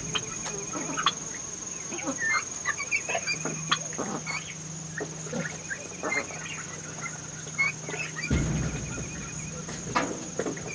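Young chickens peeping and clucking in many short, scattered chirps.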